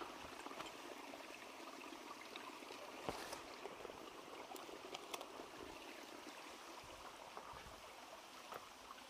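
Stream water running with a steady low trickle, with a few faint clicks.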